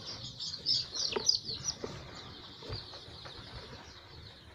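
A brood of week-old domestic chicks cheeping: many short, high peeps overlapping, thick at first, then thinning out and growing fainter.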